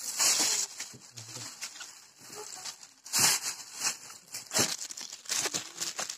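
Plastic bag crinkling and rustling as it is handled, in several loud bursts with quieter stretches between; the strongest come right at the start and about three seconds in.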